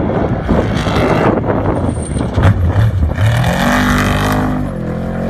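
Off-road trophy truck's engine at racing throttle, at first a rough, dense rush of engine noise. About three seconds in a clear engine note takes over as the truck passes close, dipping in pitch as it goes by.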